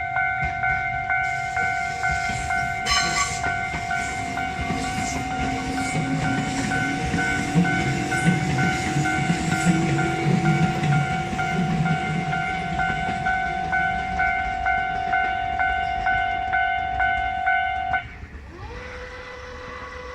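Japanese railway level-crossing alarm ringing with a steady repeating electronic two-tone ding while a Tobu 800 series electric train rumbles through. The alarm cuts off about 18 seconds in, leaving a faint rising whine.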